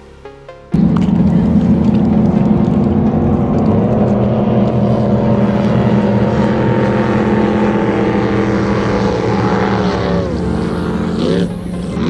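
Jet boat engine running hard at steady high revs, cutting in suddenly about a second in. Near the end the revs drop, then briefly climb again.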